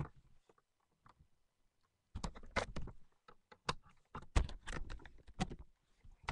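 A run of clicks, knocks and rustles from about two seconds in, lasting about three and a half seconds: small plastic model horses and accessories being handled and set down.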